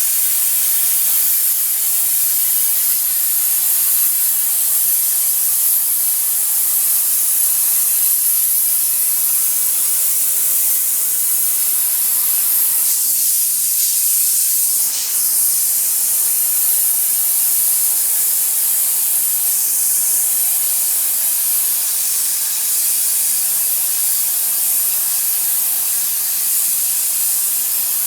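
STEMAR bed bug steam machine jetting steam from its nozzle in a steady loud hiss, which dips briefly about halfway through.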